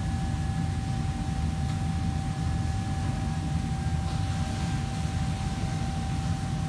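Steady low drone of commercial-kitchen fans and ventilation, with a constant thin hum above it. A faint brief hiss comes about four seconds in.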